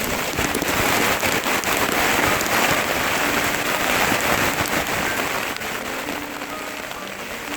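Heavy rain falling, a dense, steady patter of drops that eases a little over the last few seconds. Faint musical notes come in near the end.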